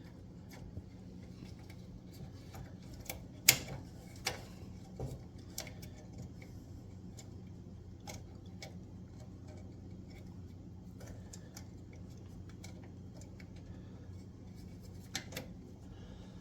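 Scattered small clicks and taps of spade wire terminals being handled and pushed onto a stove burner control switch, the sharpest about three and a half seconds in, over a steady low hum.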